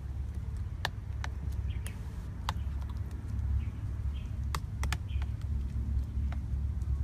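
Scattered sharp clicks and clinks of a spoon against a ceramic bowl as a pork and egg filling is mixed, a few at uneven intervals, over a steady low rumble.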